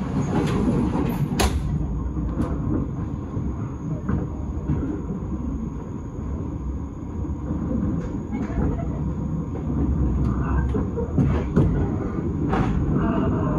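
S-Bahn train running along the track, heard from inside the carriage: a steady low rumble with a few sharp clicks scattered through it.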